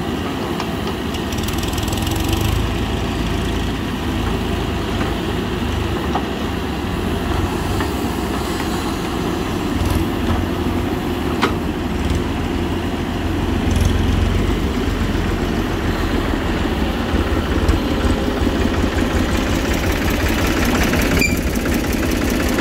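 Mahindra SX backhoe loader's diesel engine running steadily as the machine digs soil and swings its loaded bucket, with a few brief knocks along the way.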